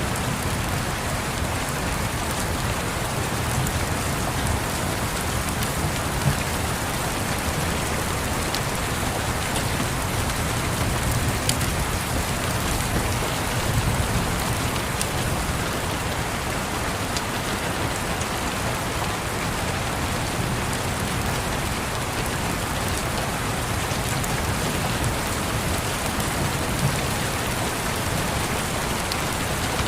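Steady rain on a surface, an even hiss with a low rumble underneath, and a few sharp crackles from a wood fire scattered through it.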